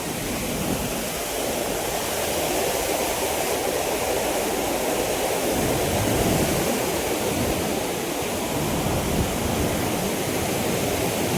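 Steady rush of a large volume of water pouring through the dam's open gates after heavy rain.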